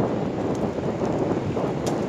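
Wind gusting on the microphone in a snowstorm, a steady rumbling buffet, with a sharp tick near the end.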